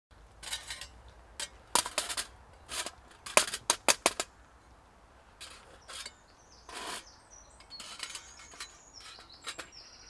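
A Firebox Gen 2 folding steel camp stove being unfolded and set up, its hinged panels giving a quick run of sharp metal clicks and clacks over the first four seconds. Softer handling noises follow, with small birds chirping.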